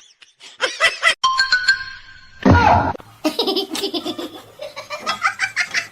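A person laughing hard in quick repeated bursts through the second half. Before it come a few clicks, a short steady tone and a loud sudden sound.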